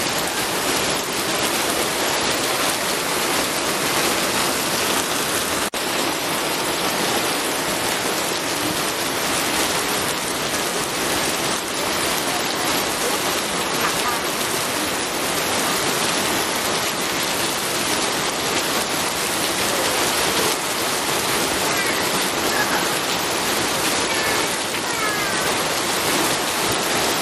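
Steady, heavy rainfall: a dense, even hiss of drops with no thunder, broken by a brief click about six seconds in.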